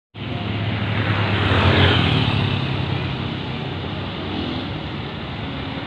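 Heavy truck diesel engine running hard under load, loudest about two seconds in and then easing slightly.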